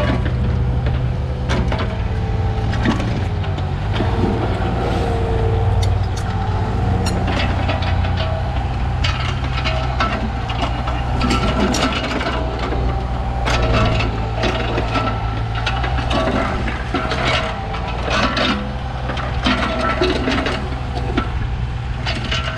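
A Komatsu PC15 mini excavator's diesel engine runs steadily under load, with a hydraulic whine rising and falling as the controls are worked. Frequent clanks, knocks and scrapes come from the bucket and arm.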